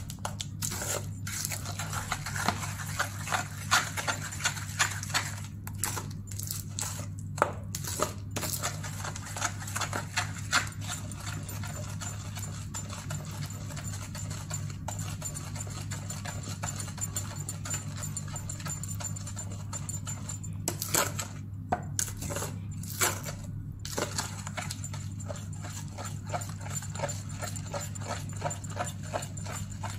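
Steel spoon stirring thick ragi cake batter in a stainless steel bowl: repeated wet scraping and clicks of the spoon against the metal sides, over a steady low hum.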